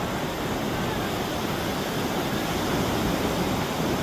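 Steady rushing noise of wind and sea surf at the shore, with no break or change.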